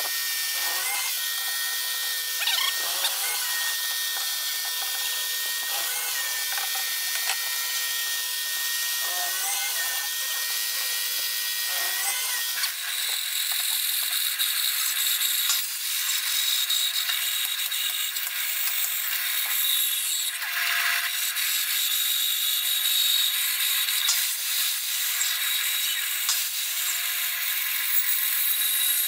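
An electric drill in a wooden drill-press stand running and boring into a small wooden piece, its tone shifting every second or two as the bit cuts. About thirteen seconds in, this gives way to a bandsaw running and cutting a curve through a pine board, a steady motor tone under the noise of the blade in the wood.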